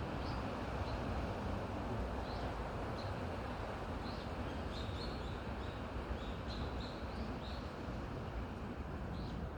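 Wind blowing steadily through forest, with small birds giving many short, high chirps, most thickly in the middle of the stretch.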